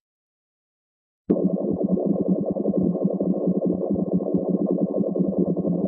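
Bubbling sound effect of bubbles welling up and overflowing: a dense, continuous run of rapid gurgling pops that starts abruptly about a second in, low-pitched and heavy.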